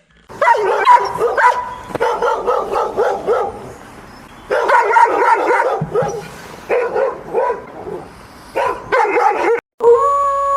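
A dog barking and yipping in quick runs of short, high barks. Near the end it cuts to a long, steady howl.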